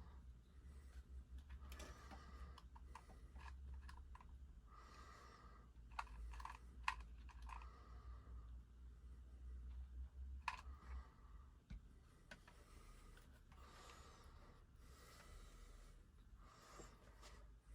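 Faint handling sounds while a mouse is glued inside a plastic CD case: scattered light plastic clicks and taps, and short rustles. The clearest clicks come about six to seven seconds in and near ten and a half seconds, over a low steady hum.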